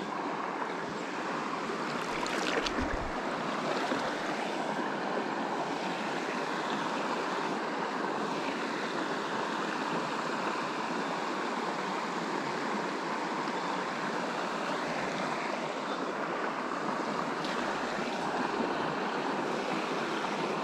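Steady rush of river current flowing past, with a brief low bump about two and a half seconds in.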